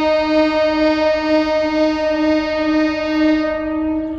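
Horn of a DEMU (diesel-electric multiple unit) passenger train sounding one long, steady single-note blast that stops near the end.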